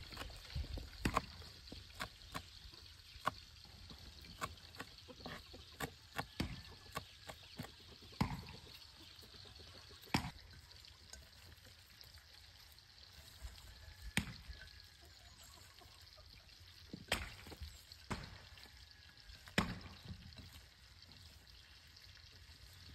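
Kitchen knife chopping fresh green herbs on a wooden cutting board: a run of sharp knocks in the first eight seconds or so, then only scattered knocks and handling sounds as sliced onion is worked in a bowl.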